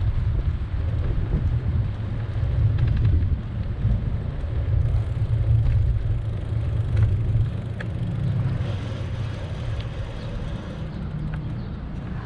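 Low wind rumble buffeting the microphone of a moving bike's camera, over city street traffic, with a few faint ticks.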